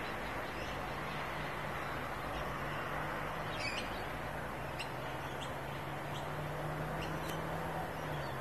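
Outdoor ambience: a steady wash of background noise with a few short, scattered bird chirps. A low steady hum runs under it from about half a second in and stops near the end.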